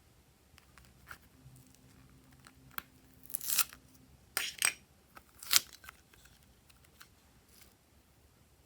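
Glossy slime being squished and pulled by hand, giving three short bursts of sticky popping and crackling in the middle, the last the sharpest.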